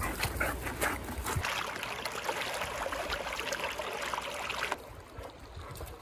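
Water splashing and trickling in a stone channel, with many small clicks and splashes in the rush; it drops suddenly to a fainter stream hiss near the end.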